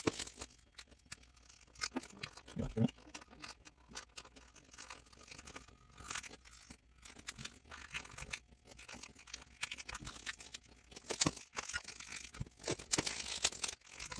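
Blue painter's tape being pulled off and torn, then smoothed down onto a shotgun's metal receiver: irregular ripping, crackling and rubbing noises, busiest about eleven to thirteen seconds in.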